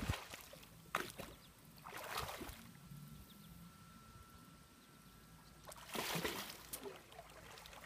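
Pool water splashing and sloshing as a swimmer ducks under for a handstand and comes back up: short splashes about one and two seconds in, a louder spell of splashing about six seconds in as she surfaces, and quiet lapping in between.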